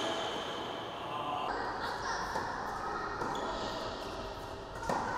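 Tennis ball being struck and bouncing on an indoor hard court, with one sharp racket strike near the end, over sustained high tones in the background.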